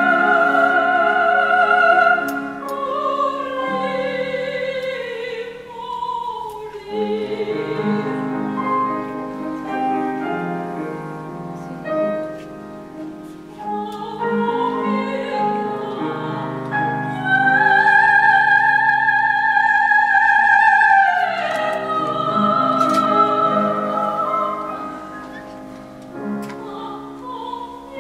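A woman singing an operatic classical song with vibrato, accompanied by a grand piano. She holds a long, loud high note a little past the middle before the phrase falls away.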